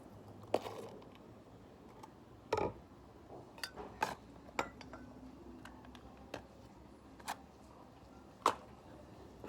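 Scattered light clicks and knocks of small hard objects being handled and set down, about ten in all at irregular intervals, with the loudest knock a little after two and a half seconds in.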